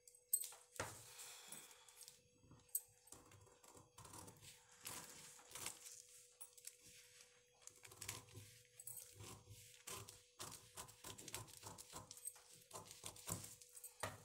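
Scissors snipping through folded newspaper, with the paper rustling: a string of faint short snips and crinkles, coming closer together in the last few seconds.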